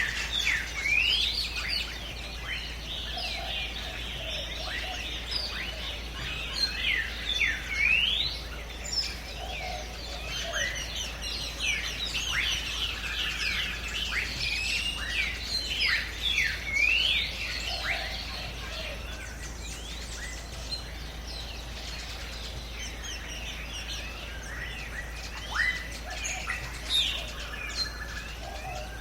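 Jungle ambience of many birds chirping and calling, with quick rising and falling chirps overlapping one another. The calling is busiest for the first two-thirds, thins out, then picks up again near the end.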